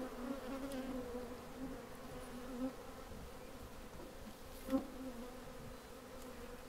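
Honeybees buzzing in a steady hum from an open hive of a colony that has been made queenless, with one brief knock about four and a half seconds in.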